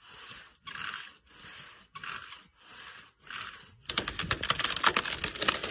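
Hand saw cutting through a dead snag's trunk in steady back-and-forth strokes, about six of them. About four seconds in, a louder, rapid crackling of splintering wood takes over as the cut trunk starts to break.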